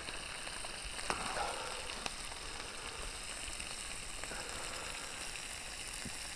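Breakfast frying in a pan on a camping stove: a steady sizzle with a couple of faint clicks.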